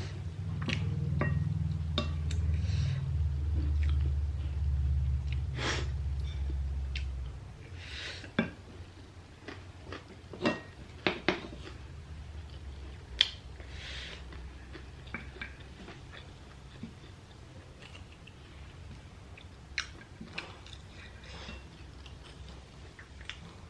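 Close-up chewing and crunching of chatpate, a spicy puffed-rice snack, with scattered sharp clicks through the stretch. A low rumble runs under the first seven seconds or so.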